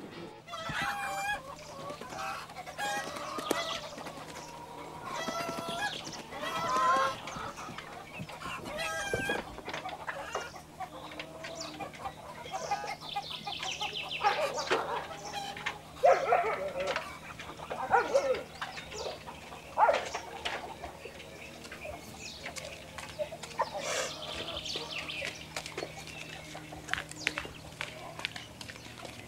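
A large flock of hens in crates on a poultry truck, clucking and squawking with many overlapping calls, busiest about halfway through.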